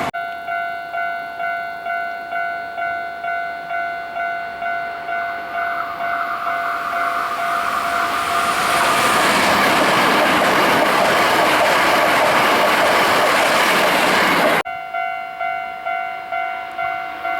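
Japanese level-crossing warning bell ringing in a steady rhythm, about three dings every two seconds, while a train passes. The train's rushing noise swells over the bell from about six seconds in. Near the end the train noise cuts off abruptly and the bell is heard alone again.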